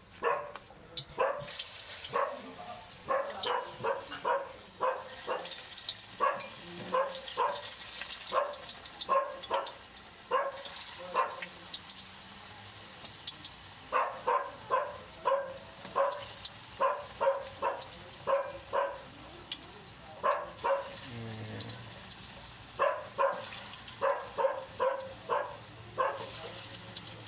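A dog barking repeatedly in runs of short barks, over the high, steady sizzle of saba bananas frying in a wok of hot oil.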